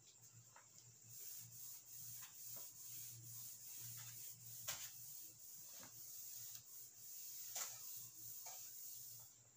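Cloth wiping marker writing off a whiteboard: a faint rubbing hiss in irregular strokes that starts about a second in and stops just before the end.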